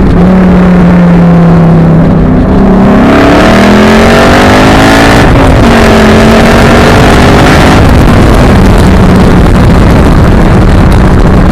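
2012 Ford Mustang Boss 302's 5.0-litre V8 running loud through its modified exhaust (resonator-deleted side pipes and SLP Loudmouth axle-backs): a steady note, then rising in pitch under acceleration, dropping sharply at a gear change about five seconds in, rising again, then settling to a steady cruise.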